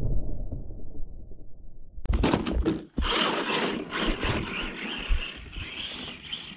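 Arrma Senton 3S electric RC short-course truck driving on snow, its motor running and its tyres churning and scraping through the snow. A muffled low rumble comes first; about two seconds in, a sudden clatter starts a steadier, hissier run of motor and tyre noise.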